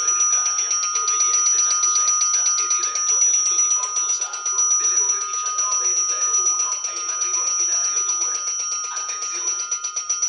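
Railway electric warning bell ringing continuously with a fast, even rattle of the striker, as at a level crossing, signalling an approaching train.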